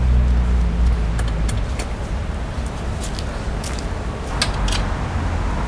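Low steady rumble of a motor vehicle engine, strongest for the first second and a half and then easing off, with a few light scattered clicks and clinks over it.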